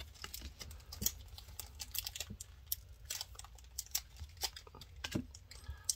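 Pokémon trading cards being flipped through by hand, one card at a time moved to the back of the stack, giving irregular light clicks and snaps, several a second, like typing.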